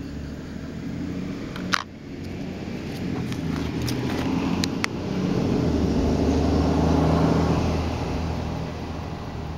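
A motor vehicle's engine running, a low hum that swells to its loudest about seven seconds in and then fades. There is a single sharp click about two seconds in.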